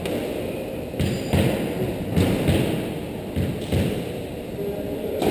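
Several dull thuds and knocks inside an enclosed squash court. They come in about three pairs, each pair a third of a second apart, starting about a second in.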